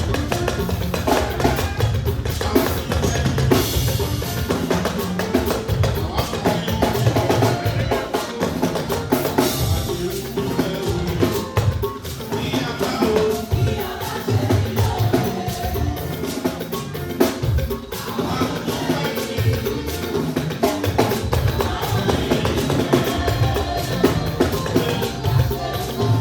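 Band music driven by a drum kit, with bass drum, snare and rimshots keeping a steady, busy groove under pitched instruments.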